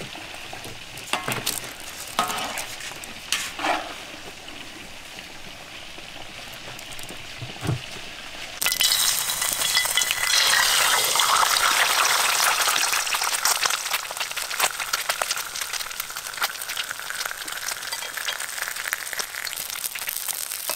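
An egg frying in hot oil in a steel wok: a loud, even sizzle that starts suddenly about eight seconds in and slowly eases. Before it there is only a quieter crackle and a few knocks.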